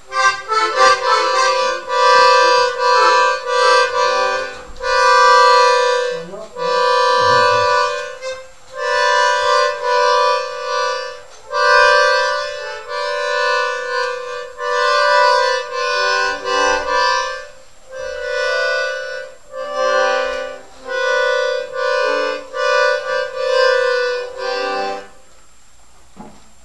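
Small toy accordion played by a beginner: the same few notes and chords are held for about a second at a time with short gaps, as the bellows are pushed and pulled. The playing stops about 25 seconds in.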